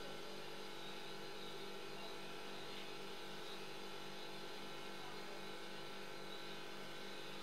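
Steady electrical hum and buzz, several fixed tones held without change.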